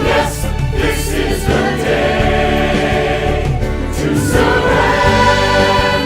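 Christian worship song: a group of voices singing with instrumental accompaniment.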